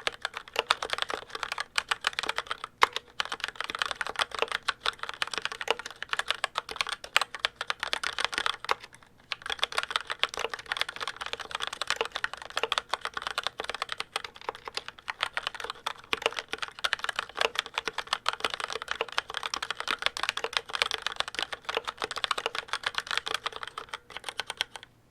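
Typing on a Logitech K835 TKL mechanical keyboard with TTC Red linear switches: a fast, continuous clatter of keystrokes, with a short pause about nine seconds in.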